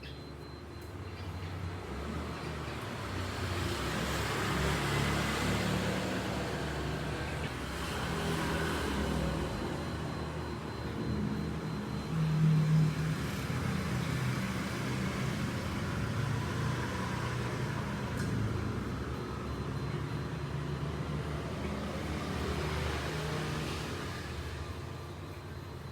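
Cat purring, a steady low rumble that swells and fades every few seconds with its breathing, loudest about twelve seconds in.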